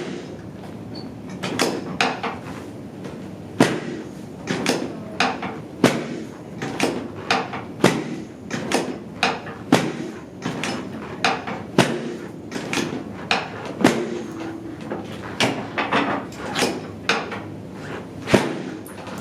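Drop sections of a chiropractic drop table snapping down again and again under the chiropractor's thrusts along the lower back, a sharp clack every half second to a second, the loudest at the very start and near the end.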